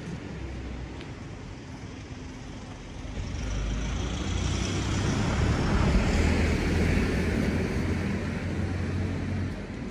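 A road vehicle driving past close by. Its engine hum and tyre noise build from about three seconds in, peak midway, and fall away near the end.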